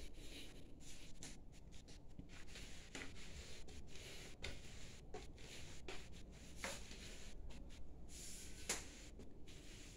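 Faint rubbing and scuffing from a hand-held phone being moved about while its holder walks, with a few soft irregular knocks.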